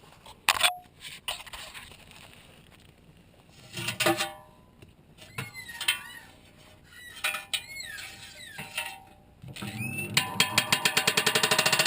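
Scattered clicks, clinks and short squeaks, then about ten seconds in a washing machine starts its spin with an unbalanced load: a loud rapid knocking that quickens.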